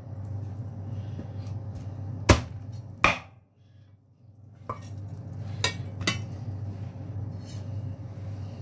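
Knife chopping cooked chicken on a cutting board: about five sharp, irregular chops, the two loudest early and three lighter ones near the middle, over a steady low hum.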